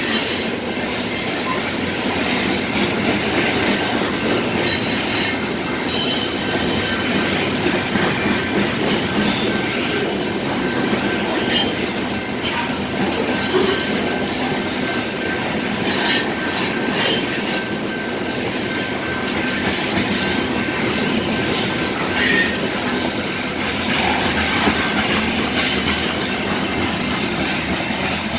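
Freight train of covered hopper cars rolling past close by: a steady noise of steel wheels on rail, with scattered clicks and a few brief high squeals from the wheels.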